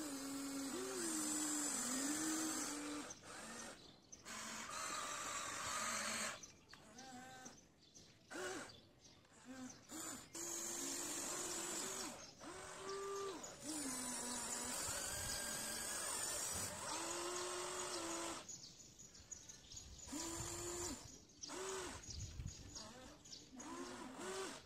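Electric motors of a radio-controlled excavator whining in a string of short runs, each a second or two long, pitch rising as it starts and dropping as it stops, as the boom, arm and bucket are worked.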